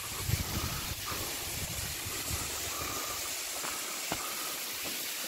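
Steady hiss of a thin waterfall spilling down a rock face onto stone, with irregular low rumbling over the first couple of seconds and a few faint ticks.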